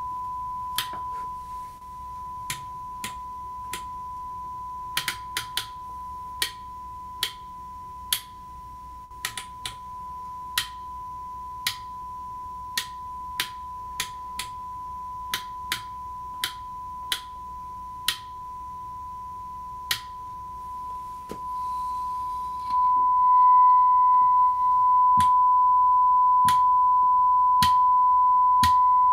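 Steady 1 kHz sine test tone played through a Fender Excelsior tube amp, with the sharp clicks of a resistance substitution box's rotary switch being stepped about once a second. Each step swaps in a different value for the amp's first-stage resistor (R44) to find the one that gives the most gain. About two-thirds of the way through, the tone jumps much louder and holds.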